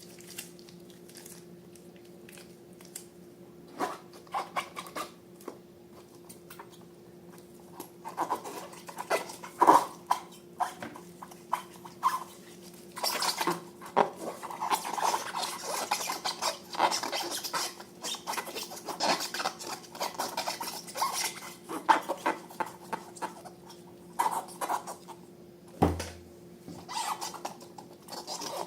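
Hands handling balloons and slime: irregular short clicks, rubbery squeaks and sticky squishing, sparse at first and busier from about eight seconds in, over a steady low hum.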